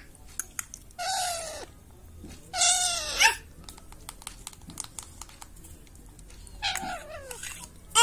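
Baby Alexandrine parakeet giving three begging calls while being spoon-fed, each call falling in pitch at its end, with faint small clicks between the calls.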